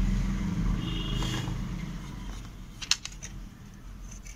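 A plastic TV remote's casing and circuit board being handled: a low rumble that fades over the first two seconds, then a few sharp plastic clicks about three seconds in, one louder than the rest.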